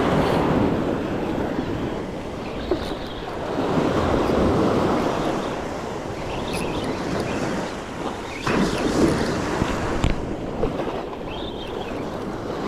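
Gulf surf breaking and washing up the sand in swells every few seconds, with wind buffeting the microphone and a few brief knocks.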